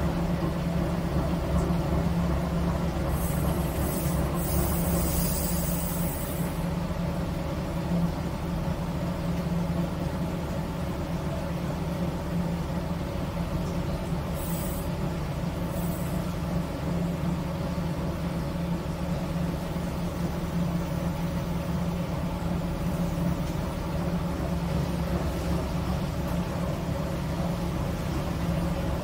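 The ferry's MWM diesel engine running steadily, heard inside the wheelhouse as a constant low hum. A hiss comes in about three seconds in and lasts a few seconds, and a shorter one comes near the middle.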